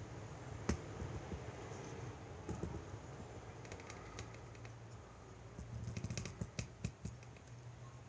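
Light clicks and taps of hands handling hard objects: one sharp click about a second in, a few scattered ones, then a quick flurry of small clicks near the end, over a low steady hum.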